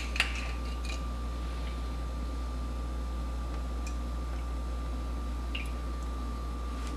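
Steady low electrical hum with a thin constant whine above it, and a few faint soft ticks. The oil being poured onto the shrimp makes no clear sound of its own.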